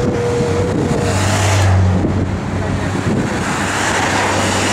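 Convoy vehicles passing close by one after another: a police escort motorcycle and race cars. The low engine hum and the rush of tyres and air swell as each goes past.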